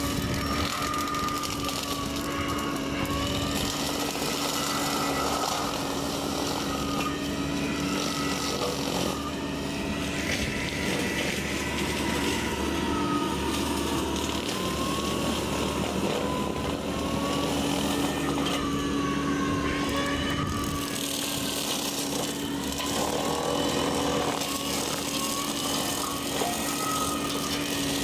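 Bobcat E45 mini excavator's diesel engine running steadily under load while its hydraulic brush cutter attachment spins and cuts through brush. A high whine wavers up and down in pitch over a constant low hum.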